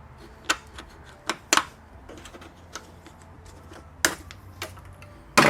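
Scattered sharp clicks and taps, about seven spread unevenly, the loudest near the end, as a small plastic trim cover pin on a car's interior roof trim is worked at and pried.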